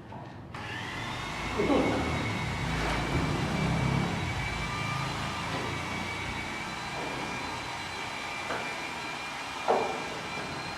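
A machine motor starting about half a second in and running steadily with a high, even whine over a rushing noise, with a couple of brief knocks.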